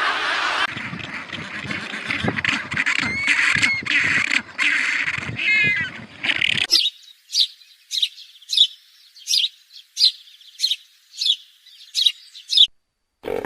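Birds calling: first a busy mix of calls and chirps. Then, about halfway through, a single bird repeats a short, high, falling call about nine times at an even pace, and this stops abruptly near the end.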